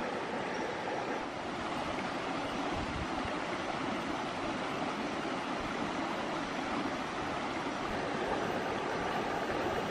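Shallow stream running over rocks: a steady rushing of water.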